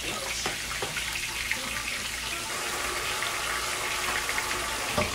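Kitchen faucet running steadily into the sink, with a short knock near the end.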